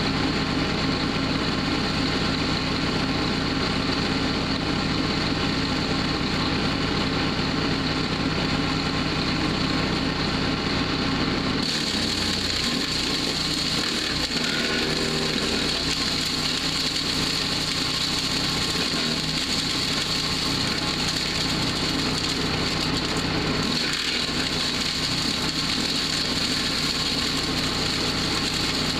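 Powerhorse woodchipper-shredder's gas engine running steadily. About twelve seconds in, the sound grows hissier as wood starts going through the chipper.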